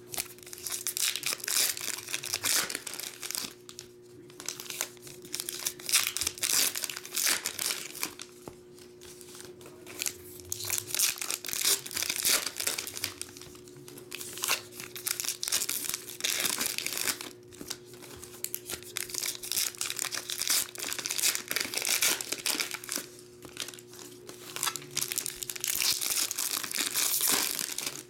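Baseball card pack wrappers being torn open and crinkled by hand, in irregular bursts on and off, over a steady hum.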